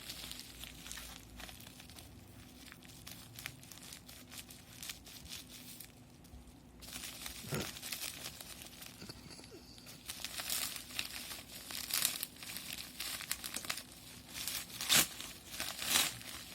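Shipping packaging being torn open and crinkled by hand: irregular rustling and tearing, getting louder and busier in the second half.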